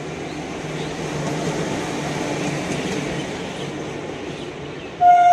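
Electric locomotive running past on the rails, a steady rumble with a low hum that swells and then eases. Near the end a loud train horn starts sounding one steady note.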